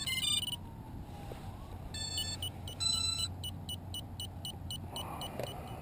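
Short, high electronic beeps from the quadcopter's radio and flight-control gear as it is readied for its first flight. A quick chirp comes at the start; from about two seconds in, a run of evenly spaced beeps follows at about three a second.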